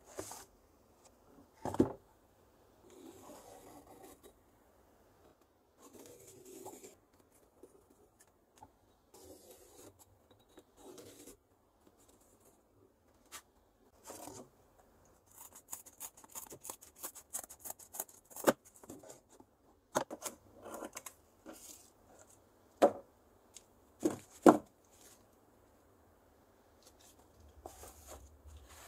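Corrugated cardboard being handled and cut: rustling and rubbing of the sheets, a run of fine crackly cutting strokes, and several sharp knocks scattered through.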